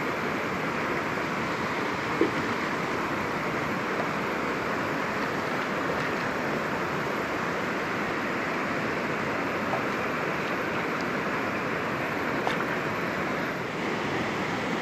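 Fast, bouldery river rushing steadily over rocks.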